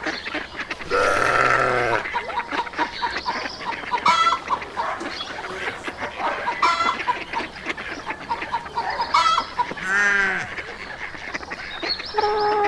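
Farmyard fowl calling: a series of separate honking or clucking calls, one longer call about a second in and a wavering one about ten seconds in, over a steady background hiss.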